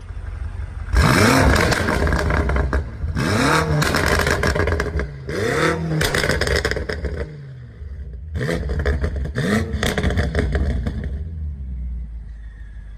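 BMW M5 F90's twin-turbo V8 revved hard several times, each rev rising and falling, with sharp exhaust crackles and pops on the overrun after each blip.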